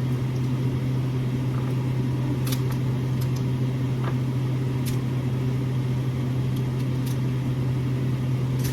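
A steady, unchanging low mechanical hum, with a few faint light clicks over it.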